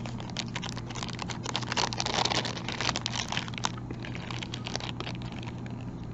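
Small clear plastic zip-top bag crinkling and crackling as fingers pull it open and work a metal pin out of it. The crackling is dense for about the first three and a half seconds, then thins to a few light ticks.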